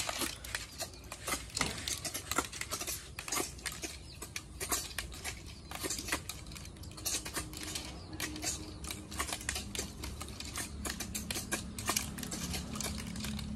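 Cooked snail shells clicking and clattering against plates and each other as several people pick through piles of them by hand, many small irregular clicks close together. A faint low hum comes in during the second half.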